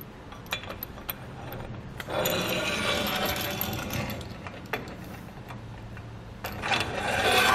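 Ladder roller bracket's bolt and washer being fed into and slid along the T-track of a Yakima HD crossbar: a few light clicks, then a rattling scrape of hardware running along the slot, in two long stretches about two and six seconds in.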